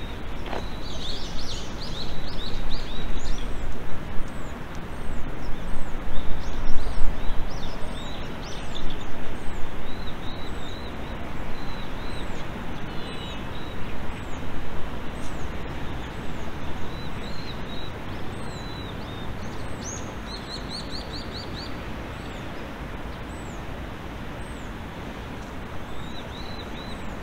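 Small birds chirping and trilling over a steady rushing outdoor background. The background swells and ebbs loudly during the first half, then settles to an even level.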